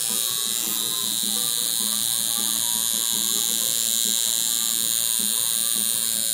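Electric tattoo machine buzzing steadily as its needle works into the skin.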